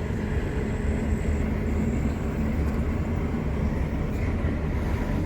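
Steady low rumble of a vehicle in motion, engine and road noise with no distinct events.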